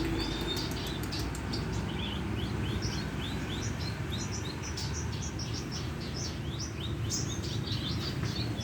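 Long-tailed shrike (cendet) singing a quick string of short, high chirping notes, about three a second. The song is packed with imitated calls of other birds. A steady low background rumble runs underneath.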